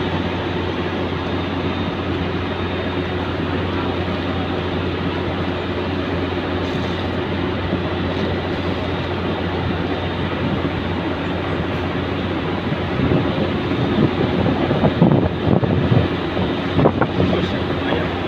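Steady low drone of a ferry's engines, with a constant hum. Uneven louder thumps come through it in the last few seconds.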